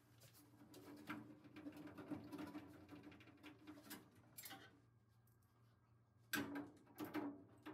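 Faint scraping and clicking of a Phillips screwdriver driving screws into a metal bill changer cabinet, with two sharper clicks near the end, over a low steady hum.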